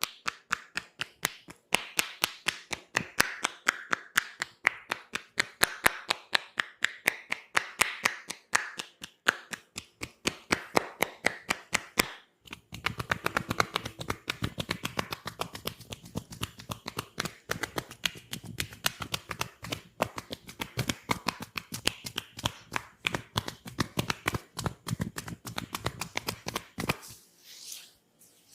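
Massage percussion: rapid, even tapping strikes on the body, about four or five a second. After a brief pause about twelve seconds in, the strikes sound fuller and duller. They stop shortly before the end.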